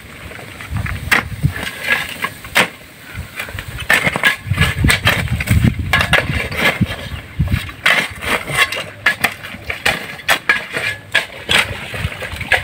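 Shovels and a hoe scraping and chopping through a cement-and-gravel mix on the ground, a steady run of irregular sharp scrapes and knocks, over an uneven low rumble.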